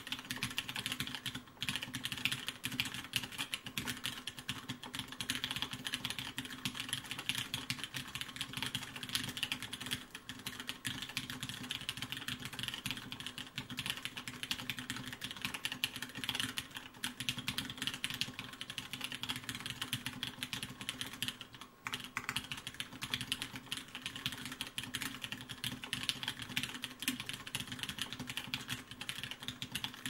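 Fast, continuous typing on a Merisi Dodici mechanical keyboard with Cherry MX Brown switches on an aluminium plate and Linworks Olivetti keycaps: a dense, steady patter of keystrokes, with brief breaks about a second and a half in and again past twenty seconds.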